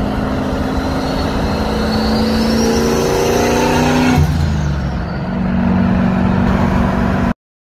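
Turbocharged Chevy Silverado pickup accelerating hard while towing a loaded car trailer: the engine note climbs steadily with a rising turbo whine above it for about four seconds. The revs then drop suddenly and the engine runs on at a steady lower note until the sound cuts off.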